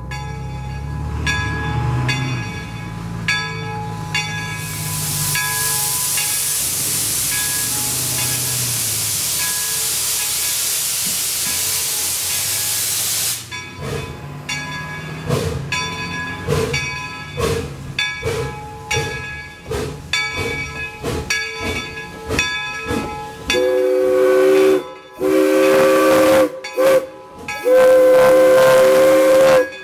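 Replica York No. 17 4-4-0 steam locomotive moving off: steam hisses loudly for several seconds, then the exhaust beats irregularly as it gets under way, with the bell ringing throughout. Near the end the steam whistle blows long, long, short, long: the grade-crossing signal.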